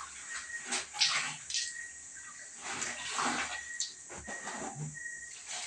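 Clothes being hand-washed in a plastic bucket: wet cloth lifted, squeezed and sloshed, with water splashing back into the bucket in irregular splashes.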